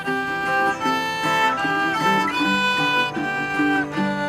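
Music: a fiddle playing a melody over guitar.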